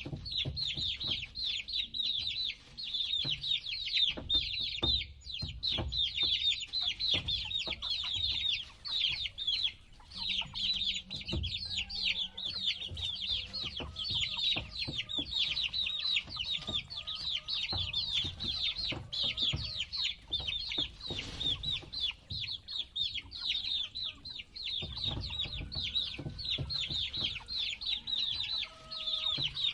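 A group of baby chicks peeping continuously: many short, high, falling peeps overlapping in quick succession, with a brief lull about a third of the way in. Low thumps and rustling sound underneath.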